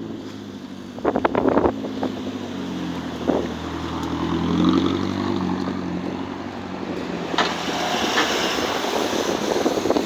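A car driving past close by, its engine hum building to a peak about halfway through and then fading. A few knocks come about a second in.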